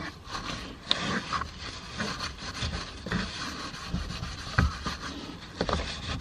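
A damp napkin rubbed and wiped over a car's plastic interior door panel, cleaning it, with a few sharp clicks or knocks along the way.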